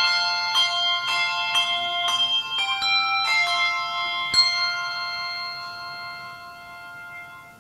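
Handbell ensemble ringing overlapping chords, new notes struck every half second or so. After a last strike about four and a half seconds in, the notes are left to ring and fade away.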